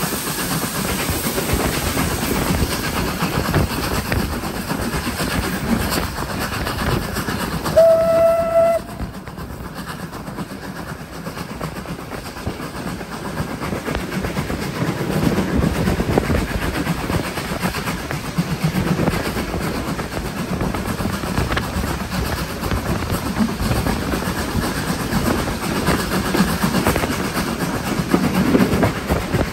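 Train running on the rails behind Lancashire & Yorkshire Railway Class 25 steam locomotive 52044, with one short steam whistle blast about eight seconds in. The running noise is quieter for a few seconds after the whistle.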